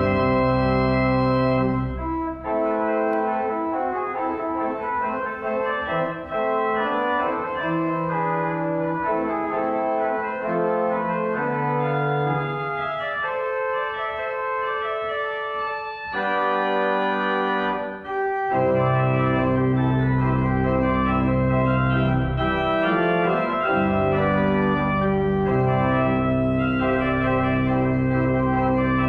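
Organ postlude: sustained full chords over deep bass notes, thinning to a lighter passage without the bass partway through before the full sound returns.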